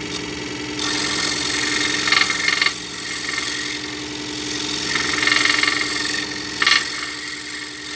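Scroll saw running at slowed speed with a homemade sanding strip in place of the blade: a steady motor hum with a fast, even flutter from the reciprocating arm. About a second in, and again about five seconds in, a gritty sanding hiss rises for a couple of seconds as the wood is pressed against the moving abrasive.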